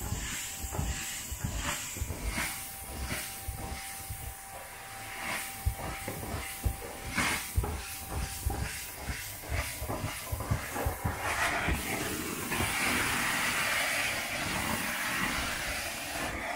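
Carpet-cleaning extractor's stair tool spraying and sucking water through carpet on stairs: a steady hiss broken by repeated short strokes, growing louder for the last few seconds.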